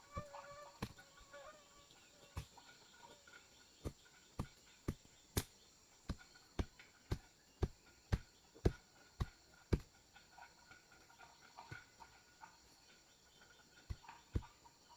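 A run of sharp knocks, about two a second, lasting several seconds through the middle, with a few scattered knocks before and after. Faint bird calls sound early on over a steady high drone.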